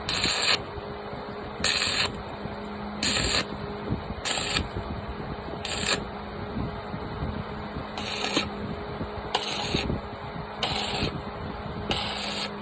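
Welding arc fired in short bursts, nine spells of hissing crackle each about half a second long and one to two seconds apart, over a steady low hum.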